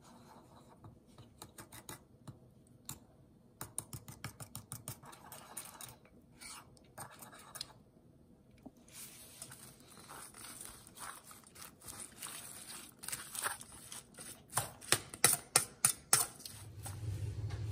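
A wooden spoon stirring thick sauce in a small ceramic bowl, with quick light taps and scrapes against the bowl. Then a utensil tosses shredded cabbage for coleslaw in a stainless steel bowl, its clicks and scrapes coming louder.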